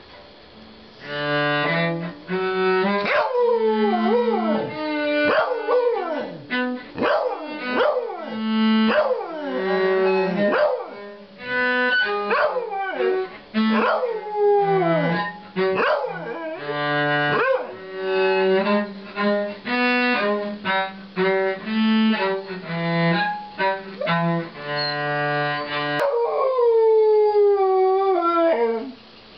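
A dog howling along with a cello. The cello plays held notes while the dog joins in with repeated howls that slide down in pitch, finishing with one long falling howl near the end.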